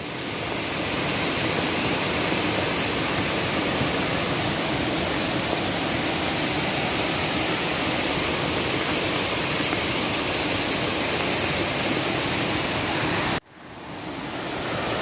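Flooded mountain stream in spate, its muddy floodwater rushing steadily across a blocked road. The sound cuts off suddenly near the end and then fades back in.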